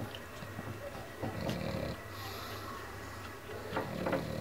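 A pug's noisy breathing: two rough breaths, about a second in and again near the end.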